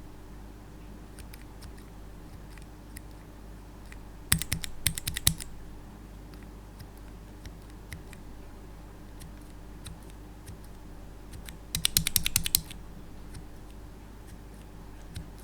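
Red linear mechanical keyboard switches being pressed and released in quick succession. There are two bursts of rapid clacking, about four seconds in and again near twelve seconds, with scattered single key clicks between.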